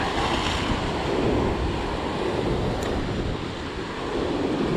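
Sea swell surging and washing over rocks in a turbulent, bouncy gully, a steady rush of surf.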